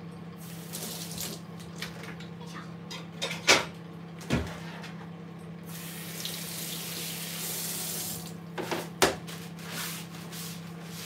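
Microwave oven humming steadily while it heats. About six seconds in, a kitchen tap runs for a couple of seconds, and a few sharp knocks of kitchenware are heard, the loudest about three and a half seconds in.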